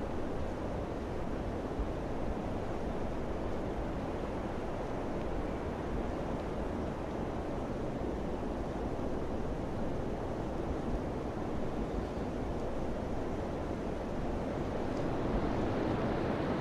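Steady rushing wind, a broad even noise that swells a little near the end.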